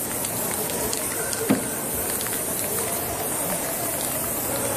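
Aerosol spray paint can hissing steadily as paint is sprayed onto the board, with one sharp knock about a second and a half in.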